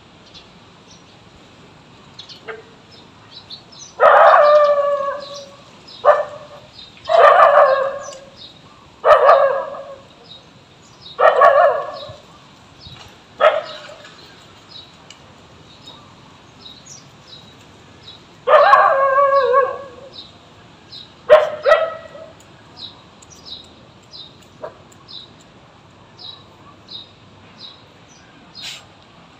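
A dog barking: about eight loud, drawn-out barks, each up to a second long, in a run of six, then a pause, then two more. Faint short high chirps repeat steadily through the second half.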